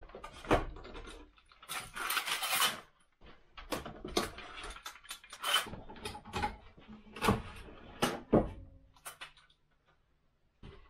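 Metal bar clamps and wooden beehive box parts being handled on a workbench: irregular knocks and clatters, with a longer scraping rattle about two seconds in as a clamp is worked.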